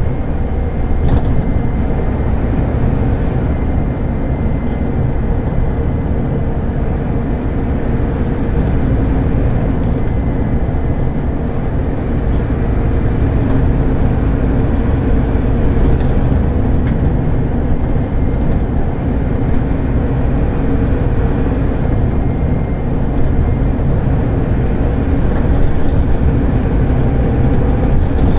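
Scania DC9 five-cylinder diesel engine of a Scania K280UD double-decker bus pulling hard on the move, heard from inside the passenger cabin as a steady low drone with a faint steady whine over it.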